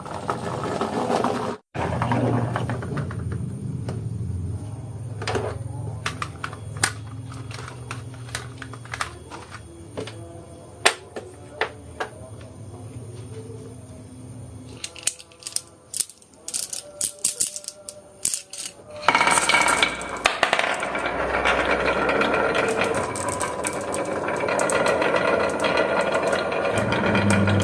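Marbles rolling and clattering along a wooden marble run: a low rolling rumble broken by sharp clicks and knocks as they drop and strike the track, turning into a dense continuous clatter about two-thirds of the way through.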